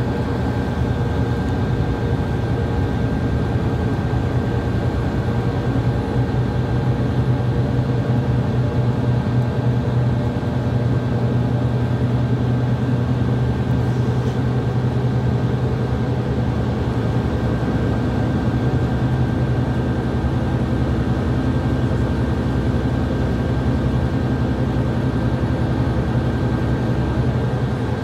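Regional bus driving along, heard from inside the passenger cabin: a steady engine hum with road noise.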